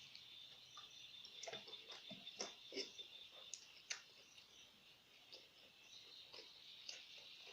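Faint wet clicks and smacks of someone chewing and eating, several close together between about one and a half and four seconds in, over a steady high chirring of crickets.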